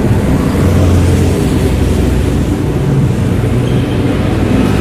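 Steady road traffic noise from cars, trucks and motorbikes passing on a busy main road.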